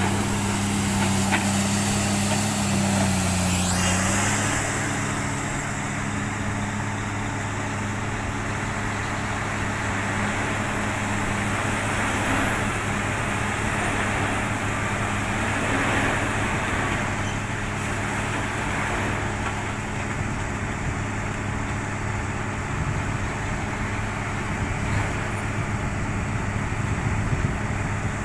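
Komatsu PC300 hydraulic excavator's diesel engine working as it loads coal into a dump truck. It is louder for the first few seconds, then runs steadily at a lower level.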